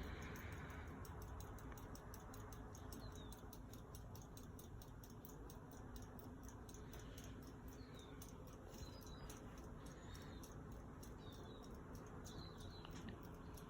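Hunter Savoy ceiling fan coasting down after being switched off: a faint steady hum with soft, regular ticking. A few short, high chirps, likely small birds, come in the second half.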